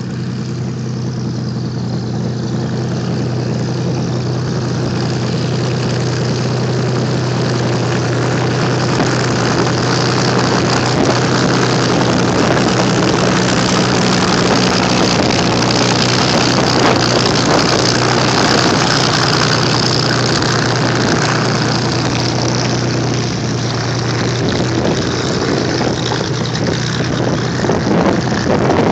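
Two-seat Supermarine Spitfire's V12 piston engine and propeller running at low taxiing power, a steady drone that grows louder as the aircraft passes midway, then eases slightly as it moves away.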